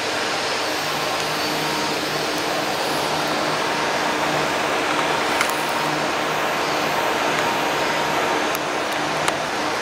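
Steady mechanical air-handling drone with a low hum running under it, with two faint clicks, one about five seconds in and one near the end.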